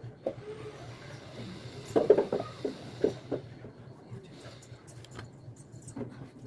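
Clatter and knocks of kitchen items being handled while cleaning, loudest in a quick cluster about two seconds in, over a low steady hum.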